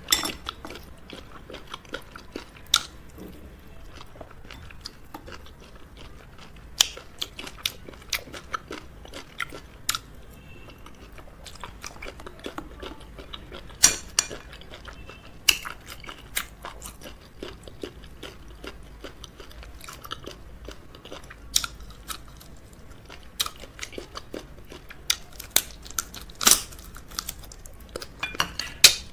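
Close-miked eating of fufu, okra soup and crab: steady chewing broken by irregular sharp crunches and cracks of crab shell being bitten.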